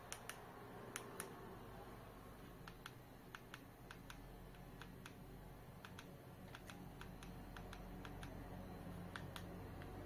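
Buttons and directional ring of a Samsung BN59-series smart TV voice remote clicking as they are pressed with the thumb: short, sharp clicks at irregular intervals, often in quick pairs, about one or two a second.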